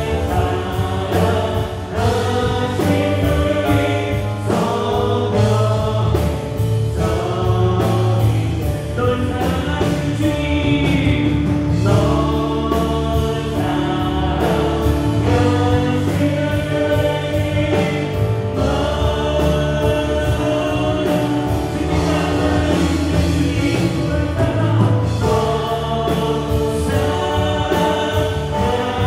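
Church worship band playing a gospel praise song on electric guitar, bass guitar, drums and keyboards, with a group of voices singing together.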